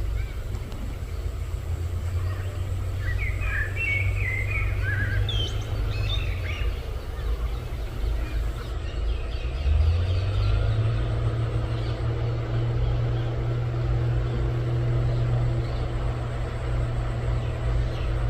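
Low steady motor-like hum that glides slightly up in pitch about ten seconds in, with a few short bird chirps about three to six seconds in.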